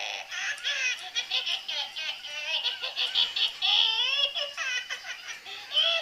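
A baby laughing in a steady run of high-pitched giggles and squeals.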